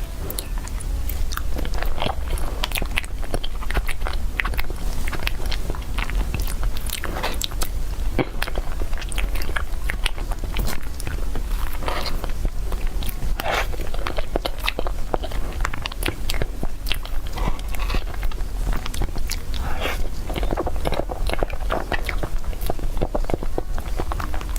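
A person biting and chewing cake, with many small irregular crunches and crackles, over a steady low hum.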